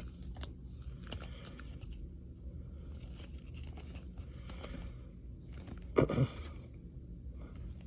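Trading cards sliding and rustling against each other as they are flipped through one at a time, in a series of short scratchy strokes. A louder short knock comes about six seconds in.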